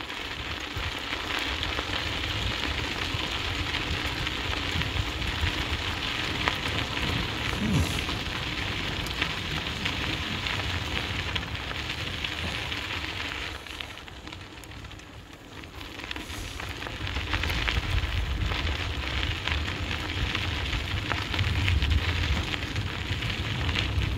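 Dog scooter's wheels rolling fast over a dirt trail, a steady crackling rattle of grit and small clicks over a low rumble. The noise drops for a couple of seconds about 14 seconds in, then picks up again.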